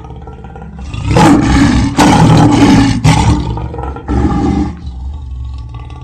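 Lion roaring: one long, loud roar begins about a second in and lasts about two seconds, and a shorter roar follows about four seconds in. A low rumble sits between and around the roars.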